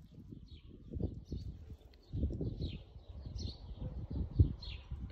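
Birds chirping, short calls repeated several times a second, over low rumbling and knocks; one louder thump near the end.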